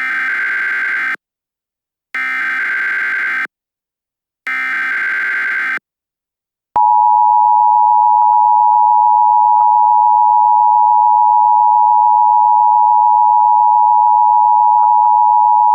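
Emergency Alert System broadcast signal. It opens with three short, harsh, buzzy data bursts about a second apart. Then, about seven seconds in, a loud steady attention tone begins and holds, announcing an emergency bulletin.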